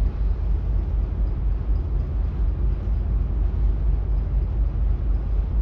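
Steady low rumble on the open deck of a ship under way, with the loudness flickering like wind buffeting the microphone.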